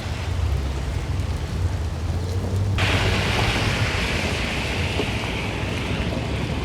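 Inside a Holden VS Commodore driving in heavy rain: the 3.8-litre L36 Ecotec V6 runs with a low rumble under the hiss of rain and wet road, and a louder, higher hiss sets in suddenly about three seconds in. The engine is running rough and won't pick up properly, which the owner puts down to a pitted, worn camshaft.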